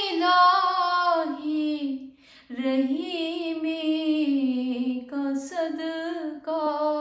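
A woman singing a devotional dua unaccompanied, in long, drawn-out held notes with a short pause about two seconds in.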